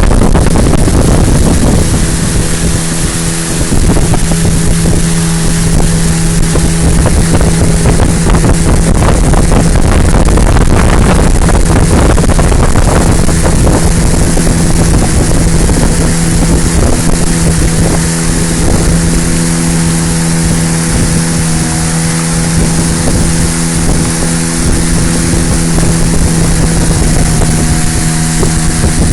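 Motorboat engine running at a steady pitch, with wind rushing over the microphone.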